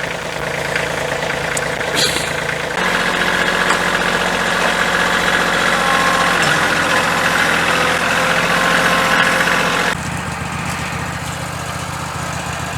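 Small engine idling, speeding up to a higher, louder running speed about three seconds in and dropping back to idle near the end.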